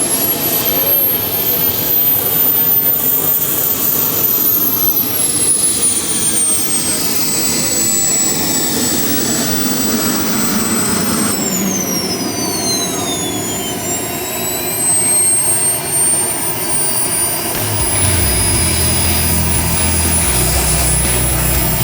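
Radio-control jet's model turbine engine whining, its high pitch climbing, holding, then sliding down as the throttle changes; about halfway through a second falling whine crosses it. A low rumble comes in near the end.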